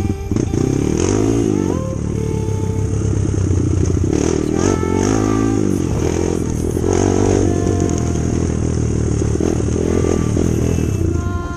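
Kawasaki KLX trail bike's single-cylinder four-stroke engine being ridden, its revs rising and falling several times as the throttle is worked.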